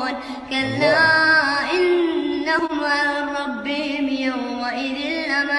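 A single voice reciting the Quran in melodic tajweed style, holding long ornamented notes whose pitch bends and steps, with a short breath or break about half a second in.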